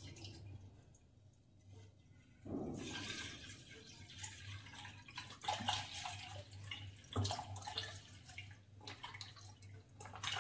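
Milk being poured into a pan of milk: a splashing pour starts suddenly about two and a half seconds in and runs for a few seconds, followed by a few light knocks.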